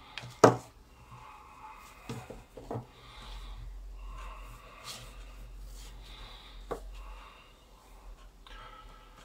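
Hands handling an 8 mm braided rope and a steel carabiner on a desk: the rope rustles and rubs over paper, with several sharp clicks and knocks, the loudest about half a second in.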